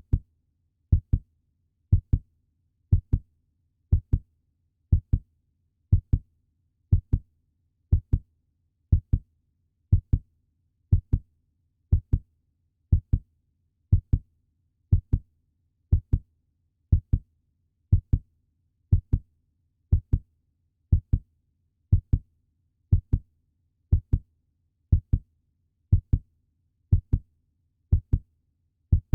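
Puppy heartbeat sound effect: a steady lub-dub, two low thumps close together, repeating about once a second.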